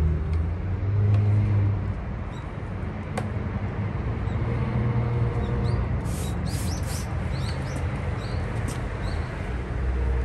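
Low rumble of a vehicle engine running nearby, stronger in the first two seconds, with a few quick bird chirps about six to seven seconds in.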